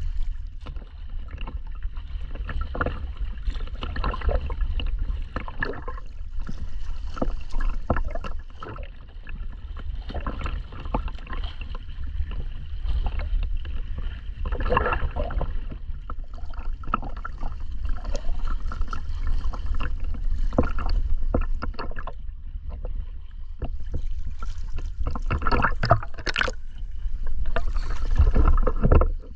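Water splashing and sloshing close to the microphone in irregular bursts, over a steady low rumble.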